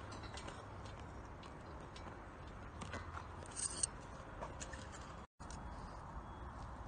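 Faint scattered ticks and clicks over a low, steady background, with a short hiss a little before four seconds in; the sound drops out completely for a moment about five seconds in.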